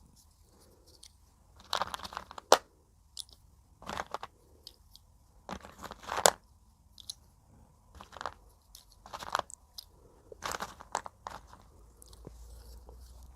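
Broken slate pencil pieces being bitten and chewed: bursts of crunching every second or two, with a couple of sharp, loud snaps where a piece breaks.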